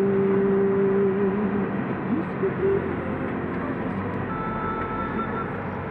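Road and engine noise inside a moving car, with a voice holding a long pitched note over the first couple of seconds that then breaks off with a short slide in pitch; fainter thin tones come in later.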